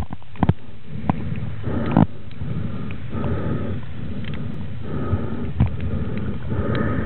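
A snorkeller breathing through a snorkel, heard through the water: four rasping breaths, one every one and a half to two seconds, over a steady low rumble, with a few sharp clicks.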